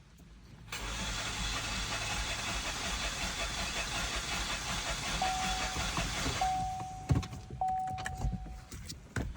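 2021 Chevrolet Equinox four-cylinder engine cranked over on the starter for about six seconds for a compression test on cylinder number 3, which holds good compression. Near the end a high, steady electronic tone sounds in a few short stretches.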